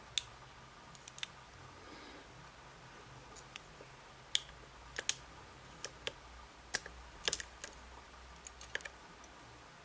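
Small metal lock pins and tools clicking and ticking sharply as a pin-tumbler cylinder is taken apart, about fifteen irregular light clicks, some in quick pairs.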